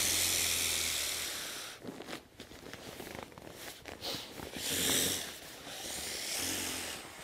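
Air hissing out of an Exped Megamat self-inflating sleeping pad's open deflate valve as the rolled mat is pressed down to squeeze out the last of the air. It is a steady rush that fades after about two seconds, then comes back in two shorter gusts, with fabric rustling in between.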